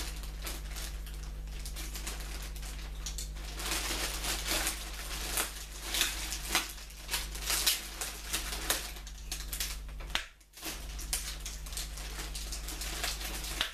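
Clear plastic packaging crinkling and rustling in irregular bursts as bike-rack parts are handled inside it, busiest in the middle, with a brief lull about ten seconds in.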